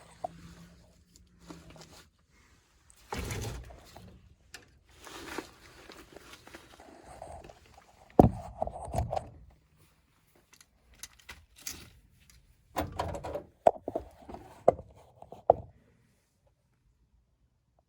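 Thunks, knocks and metallic rattles as the furnace cabinet is opened, its sheet-metal access panel handled and set aside. The loudest clunk comes about eight seconds in, with a busier run of knocks a few seconds later.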